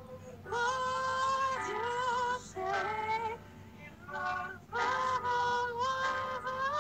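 A young man singing unaccompanied, in phrases of long held notes with a slight waver and short breaks between them.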